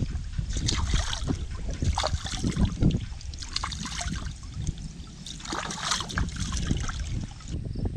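Water splashing and sloshing in two spells as a plucked chicken is swished and rinsed by hand in shallow muddy water.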